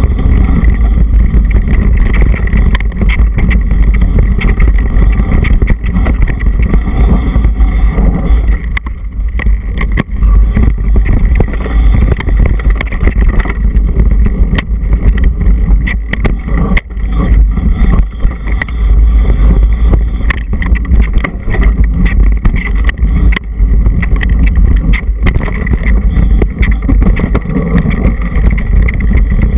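Wind buffeting a mountain-bike action camera's microphone on a fast downhill run: a loud, steady low rumble, with frequent knocks and rattles from the bike over the rough dirt trail.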